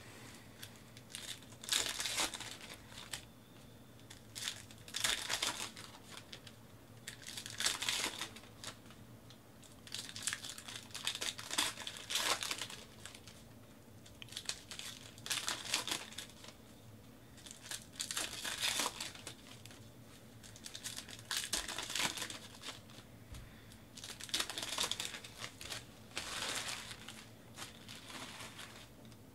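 Sealed trading-card pack wrappers being torn open and crinkled by hand, one pack after another: about ten bursts of crackling rustle, every two to three seconds.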